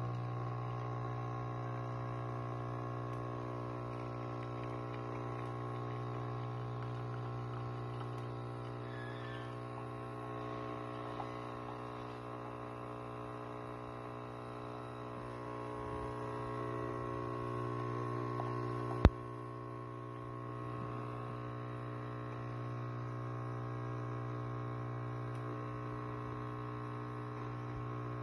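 Single-serve coffee machine's pump humming steadily as it dispenses a thin stream into a mug, with one sharp click about two-thirds of the way through.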